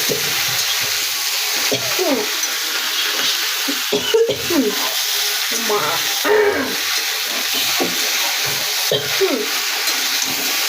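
Food frying in hot oil in a pan, a steady sizzle, while a spatula stirs it and scrapes the pan with short squeaks every second or so.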